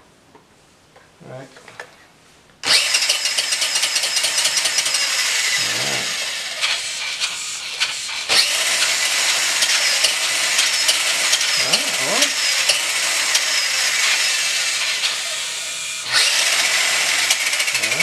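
Toy-grade electric remote-control car's drive motor and gears whirring as its wheels spin freely in the air, starting suddenly about three seconds in. It dips briefly about two seconds before the end and then picks up again.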